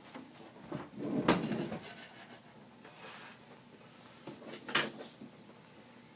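Computer server hardware being handled: a clattering knock about a second in and a sharp click near five seconds, with small taps between.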